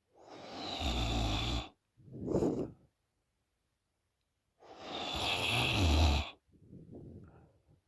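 A sleeping woman snoring with her mouth open: two long, rattling snores with a deep rumble, each followed by a shorter breath, with silent pauses between.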